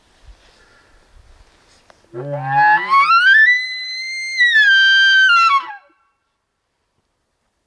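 Elk bugle call blown through a flared bugle tube, imitating a bull elk's bugle. About two seconds in it starts as a low note, glides up into a high whistle that is held, steps down a little and cuts off after about four seconds.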